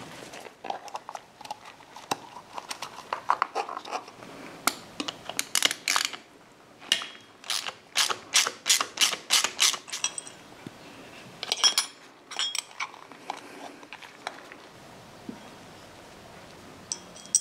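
Screwdriver undoing the screws of the ignition timing sensor and its rotor cup in a Harley Sportster's cam cover: a run of sharp metallic clicks, about three a second, through the middle, with a further cluster a little later and a single click near the end.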